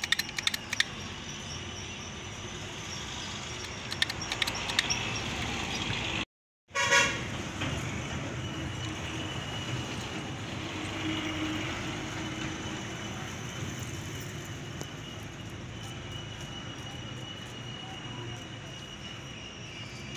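Sharp metal clicks of hand tools on a steel bottle jack, then, after a brief dropout, a short vehicle horn toot about seven seconds in, over a steady background hum of passing traffic.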